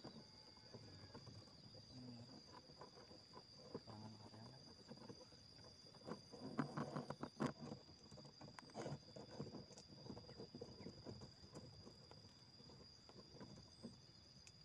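Near-quiet outdoor ambience: a steady, thin, high insect drone, with scattered soft rustles and clicks that bunch together briefly about halfway through.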